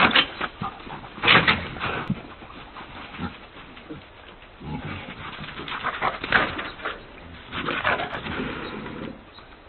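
Domestic pig squealing in repeated harsh bursts, the loudest at the very start and about a second and a half in, with more squeals through the middle and near the end: distress squeals from a pig being grabbed and chased by a black bear.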